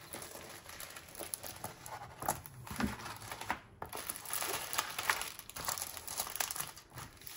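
Plastic crinkling and rustling as a rolled diamond painting canvas under its clear plastic cover film is unrolled and pressed flat by hand, in irregular crackles.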